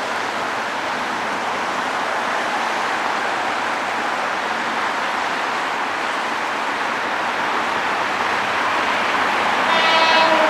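Steady rushing noise of a passing train, growing slowly louder, with a short pitched horn-like tone starting near the end.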